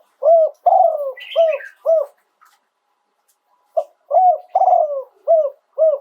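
A spotted dove cooing: two phrases of about five low, hooped coo notes each, the second beginning just before the four-second mark. A brief higher chirp from another bird sounds about a second in.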